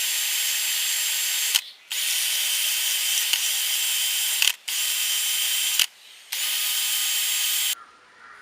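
Electric motor of a power sharpening tool running with a steady whine and grind. It runs in four runs with brief pauses between them and stops abruptly near the end.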